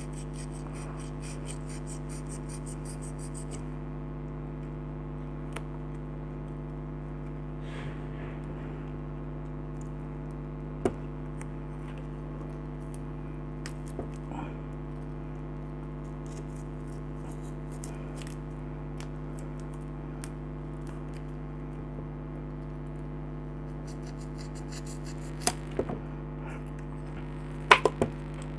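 Scattered light clicks and scrapes of hands and tools handling the parts of an opened compressor nebulizer, over a steady low electrical hum, with a few sharper clicks near the end.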